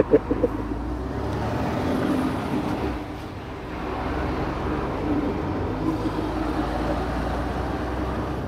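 Articulated truck driving, its engine and tyre noise heard from inside the cab as a steady drone with a faint wavering hum. A short sharp knock right at the start.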